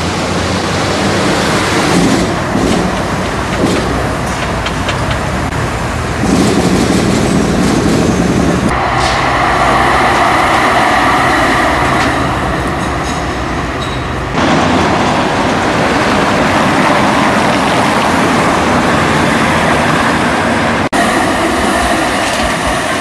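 City trams running on street rails: a steady rumble of wheels on track, with a higher whine for a few seconds in the middle. The sound changes abruptly several times as the footage cuts between takes.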